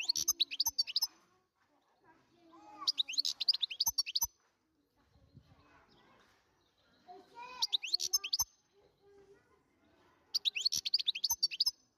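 Wild-caught European goldfinch singing: four bursts of rapid, high twittering and chirping notes, each lasting a second or so, a couple of seconds apart.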